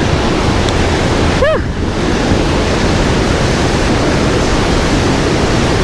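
Steady rushing of a waterfall on Hills Creek, a loud, even roar of falling water. A short call that rises and falls in pitch sounds once about a second and a half in.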